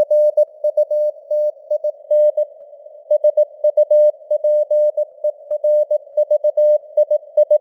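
Morse code (CW) sent at 18 words per minute: a single mid-pitched tone keyed on and off in dots and dashes, over a steady hiss of simulated radio band noise, as heard through a narrow CW receiver.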